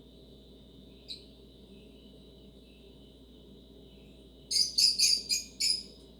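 Small pet bird chirping: one short chirp about a second in, then a quick run of five loud, sharp chirps near the end, over a steady high-pitched whine.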